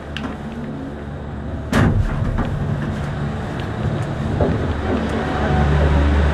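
Cable car cabin running with a steady low hum, a sharp loud clunk about two seconds in, and a low rumble growing louder near the end.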